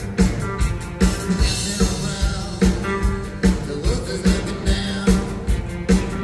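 Live rock band, taped from the audience in a concert hall: drums keep a steady beat of about two and a half a second under bass, electric guitars and singing.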